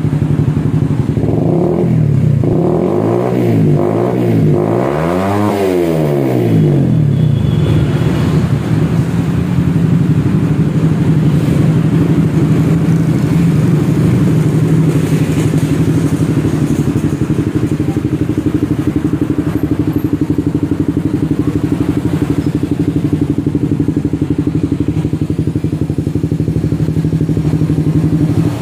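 Suzuki Satria FU 150 fuel-injected single-cylinder engine running loud through a full-system racing exhaust, blipped a few times in the first six seconds, the last rev the highest, then settling to a steady idle.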